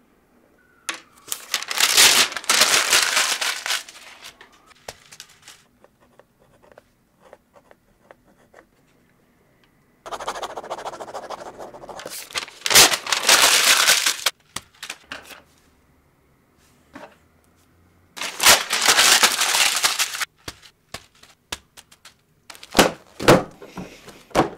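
Three long bursts of harsh scratching and rustling on the paper of a spiral notebook, the sound of frustrated work on a page that ends up scribbled out, with small clicks in the gaps and a few sharp knocks near the end.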